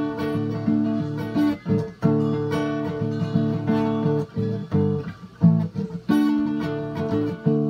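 Solo acoustic guitar, strummed chords with brief stops between them around the middle.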